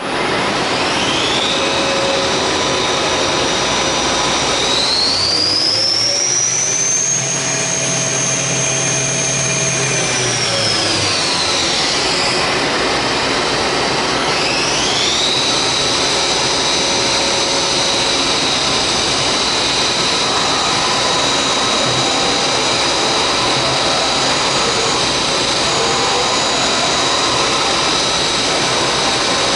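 Hurco BMC3017 CNC vertical machining center running, its spindle giving a steady high whine. The pitch rises about five seconds in, holds, falls back around twelve seconds, then climbs again and stays steady.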